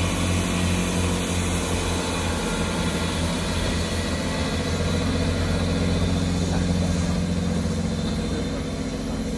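Diesel engines of a GWR Class 166 diesel multiple unit working as the train pulls away: a steady low drone that fades slightly near the end as the train draws off.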